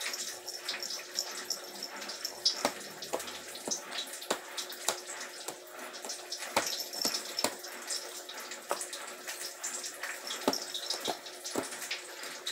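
A baby eating puree: small irregular mouth clicks and smacks over a steady background hiss.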